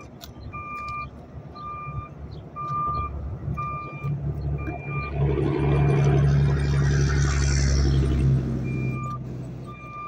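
Backup alarm of heavy demolition machinery beeping at a steady pitch, about one beep a second. About four seconds in, a heavy diesel engine rises and runs loud, drowning the beeps, then eases off near the end as the beeping is heard again.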